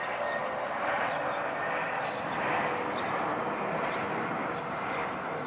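Airbus A319 airliner's IAE V2500 turbofans passing overhead on approach with gear down: a steady jet rush with a faint high whine held through it.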